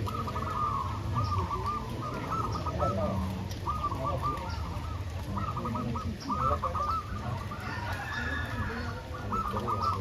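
Many caged zebra doves (perkutut) cooing at once, their strings of short rising-and-falling coos overlapping one another without a break, over a low background rumble.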